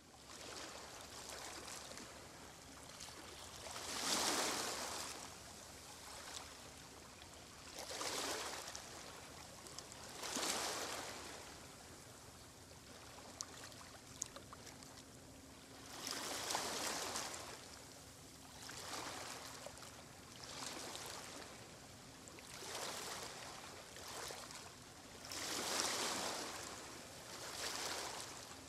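Gentle waves washing in. The soft rushing rises and falls back about every two to four seconds.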